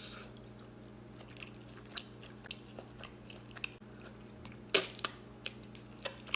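A person chewing food close to the microphone, with soft wet mouth sounds and scattered small clicks. Two louder, crunchy bites come about five seconds in.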